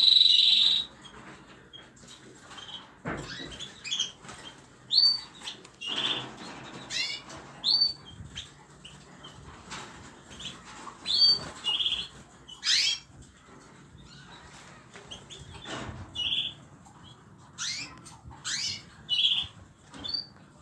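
Small pet cage birds chirping: short high calls, several falling in pitch, every second or so, with a few soft rustles or wing flutters between them.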